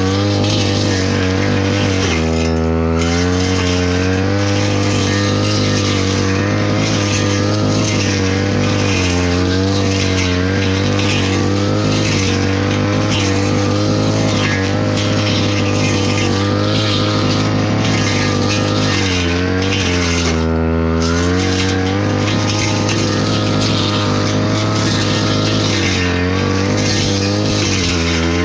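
Brush cutter engine running hard as the cutting head slashes through grass and weeds, its speed wavering with the load and dropping briefly twice, about two seconds in and again around twenty seconds.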